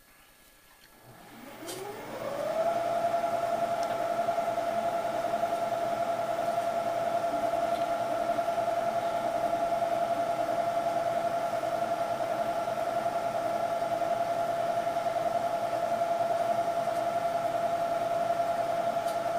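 Milling machine spindle starting up about a second in, its whine rising in pitch for about two seconds as it runs up to speed with a corner rounding end mill, then running at a steady pitch.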